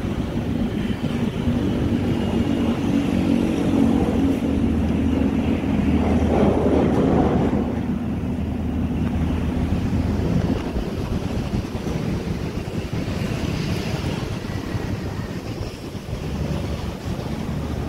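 Steady road traffic rumbling past. One vehicle passes louder about six to seven seconds in.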